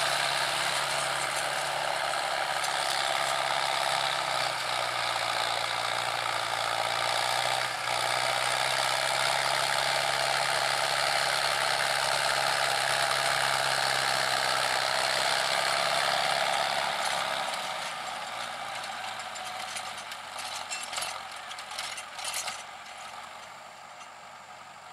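Mahindra Arjun Novo 605 DI-i tractor's diesel engine running under load as it pulls a rotary tiller through paddy stubble. A steady low engine hum sits under the dense churning noise of the tiller. The sound fades over the last several seconds as the tractor moves away.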